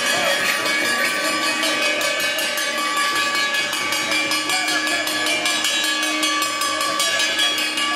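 Ritual metal bells and a brass plate ringing and jingling without a break, shaken in a quick, even rhythm, with many overlapping ringing tones.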